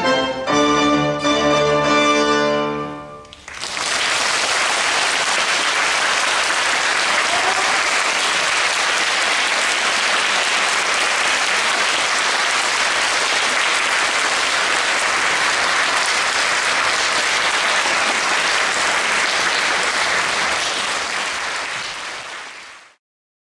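Violin, piano and bandoneon trio playing the last bars of a piece and ending on a held chord about three seconds in. An audience then applauds steadily, fading and cutting off shortly before the end.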